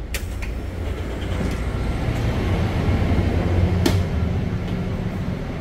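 Inside a passenger train carriage: a steady low rumble, swelling slightly midway, with a sharp click just after the start and another about four seconds in.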